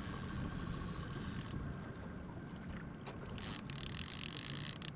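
Steady low rumble of a small fishing boat's outboard motor running at trolling speed, with water washing along the hull. A few light knocks come late on.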